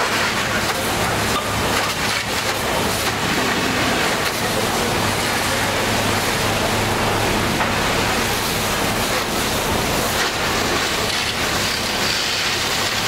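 Steady rushing hiss of a fire hose stream spraying and splashing against a storefront, over a steady low engine hum.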